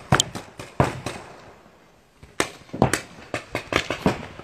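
Paintball markers firing in sharp, irregular pops: a few shots, a pause of about a second, then a quicker run of shots.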